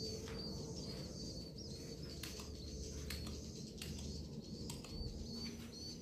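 Edible-nest swiftlets twittering in their nesting house: a continuous run of thin, high, wavering chirps, with a few sharp clicks scattered among them.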